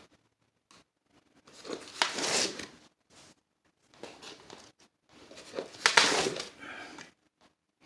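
Two bouts of scraping and rustling, each with one sharp click, as a straight edge is slid and adjusted on a sheet of drywall.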